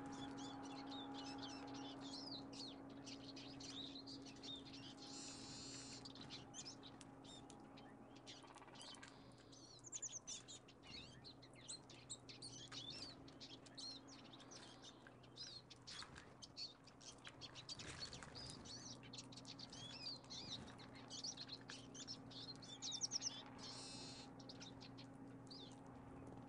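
Small songbirds, finches and tits, chirping and calling in quick, overlapping high notes around a seed feeder. A steady low hum runs underneath.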